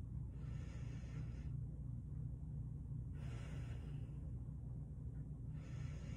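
A woman breathing audibly through a slow paradoxical, chest-lifting breathing pattern: three breaths, each about a second of rushing air, roughly every two and a half seconds, over a steady low hum.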